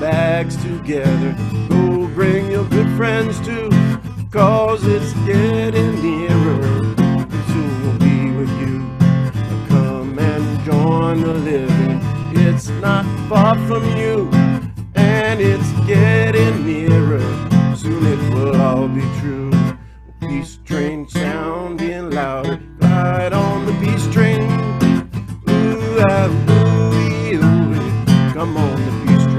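Steel-string acoustic guitar strummed in steady chords, with a man singing along. The strumming briefly drops away about twenty seconds in.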